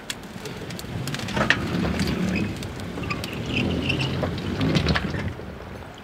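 Water sloshing and splashing, with scattered knocks, as a small outboard skiff floats off its submerged trailer.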